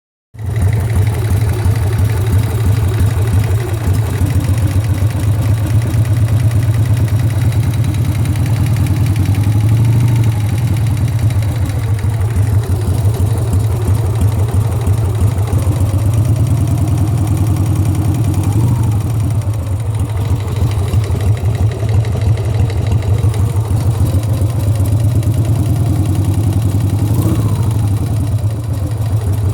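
Harley-Davidson Sportster air-cooled V-twin engine idling steadily, with a knock in the engine.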